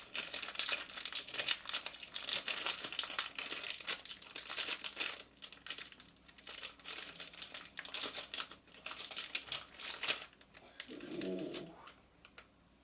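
Packaging crinkling and rustling in dense, irregular bursts as a new computer I/O shield is unwrapped and handled, dying away about ten seconds in.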